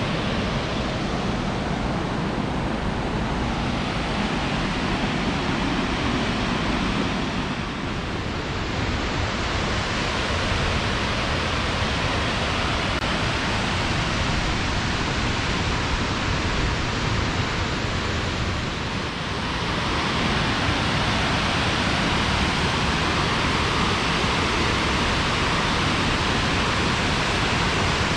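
A waterfall rushing: a steady, even wash of falling water, a little louder in the last third.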